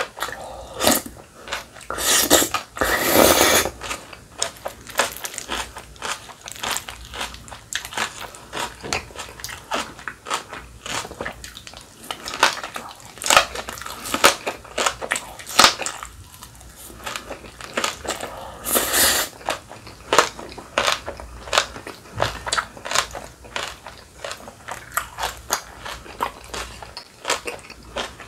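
Close-miked eating of cold buckwheat noodles and kimchi: longer slurps about two and three seconds in and again near nineteen seconds, with quick crunching chews in between.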